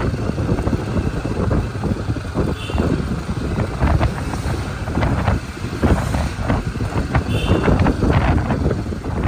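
A vehicle on the move, its rumble mixed with wind rushing over the microphone and frequent irregular knocks and rattles.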